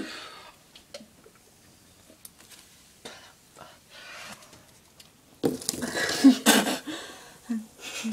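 A few seconds of quiet with faint clicks and handling noises, then a loud, breathy vocal outburst about five and a half seconds in lasting over a second, followed by a short voiced sound near the end. The outburst is a girl reacting to cinnamon burning her mouth.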